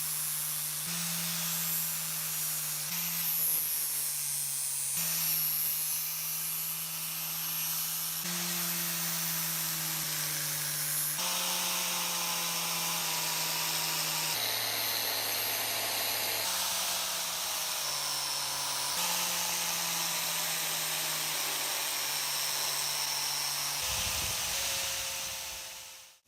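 A small electric power tool's motor running steadily with a hum and a high hiss, in a string of short edited clips whose pitch shifts slightly at each cut every two to three seconds. A rougher, lower noise replaces it near the end.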